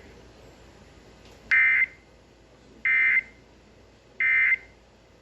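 Emergency Alert System SAME digital data bursts: three short screechy buzzes about a second apart. Their shortness marks them as the end-of-message code that closes a warning.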